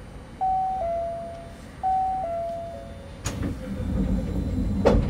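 Inside an Osaka Monorail 2000-series car: a two-note falling chime sounds twice, then the sliding doors run shut with a low rumble and close with a sharp clunk near the end.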